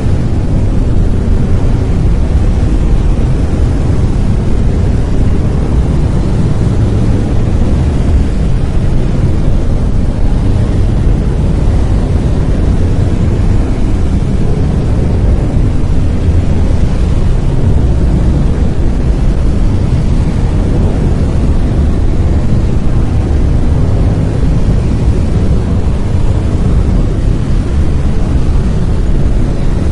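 Brown noise: a steady, loud, deep rumbling hiss, heaviest in the bass and thinning toward the treble, with no changes.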